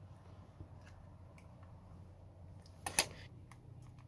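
Small plastic clicks and taps from handling an opened DJI FPV remote controller while its wires are pushed into place with a plastic pry tool, with one sharper click about three seconds in, over a faint low hum.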